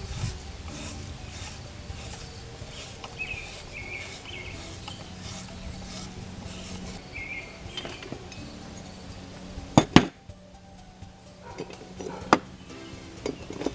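Metal-on-metal workshop handling: soft scraping or rattling strokes, then two sharp metallic knocks just before ten seconds in and another about two seconds later.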